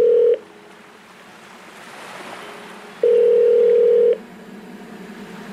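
Sparse electronic background music: a held synth tone ends just after the start, a soft noise swell rises and fades, and the same steady tone is held again for about a second, starting about three seconds in.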